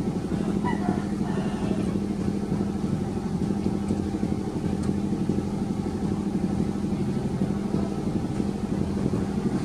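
An engine running steadily at a constant speed, a droning hum that does not change.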